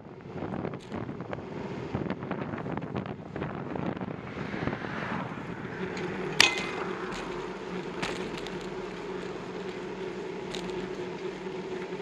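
Ride noise from a bicycle on a windy road: wind buffeting the microphone and the bike and camera mount rattling over the pavement, with one sharp clack about six and a half seconds in as the bike jolts. A steady hum runs from about halfway through.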